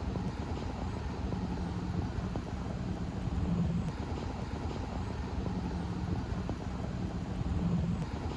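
Hot rod engine idling: a steady low rumble that swells slightly every few seconds.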